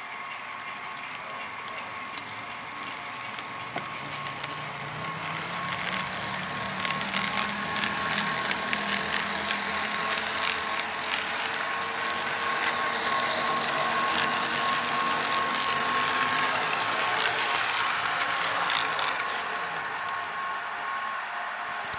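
Bowser ALCO C-636 HO-scale model diesel locomotive running along the track, its motor and truck gears whirring with fine clicking from the wheels, growing louder as it passes close and dropping away near the end. The sound is the gear noise from the trucks of a new, little-run model.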